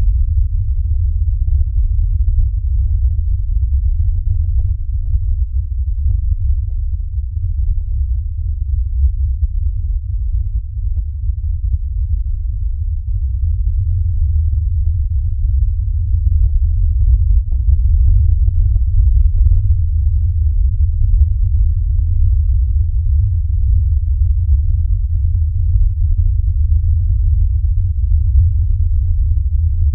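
A loud, steady deep rumble, almost all low bass, with faint crackles above it.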